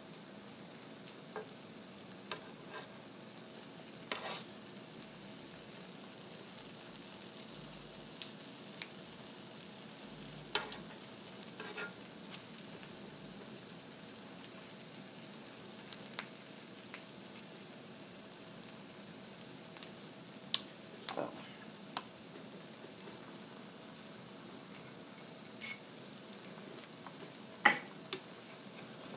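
Tortillas and cheese frying on a flattop griddle, a steady sizzle. A plastic spatula makes scattered short clicks and taps against the tacos and griddle, the loudest near the end.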